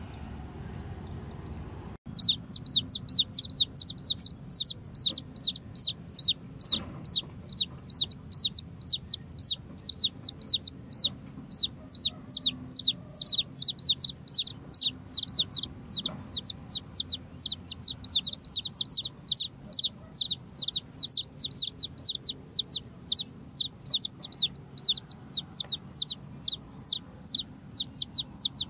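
Newborn chicks peeping: a rapid, unbroken run of high, falling peeps, about three a second. The peeps start abruptly about two seconds in, after low, steady background noise.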